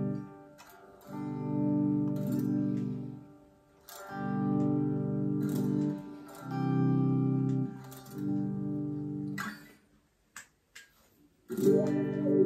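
Electric guitar played through a Donner Vowel volume/wah pedal into a Roland Micro Cube amp: four chords, each ringing about two seconds with short breaks between. It drops out for over a second, then a louder, brighter chord comes in near the end.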